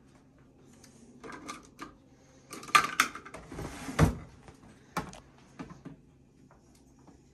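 Clicks, knocks and a clatter as a plastic water-filter pitcher and a measuring cup are handled at a stand mixer's steel bowl. The loudest knocks come about three and four seconds in.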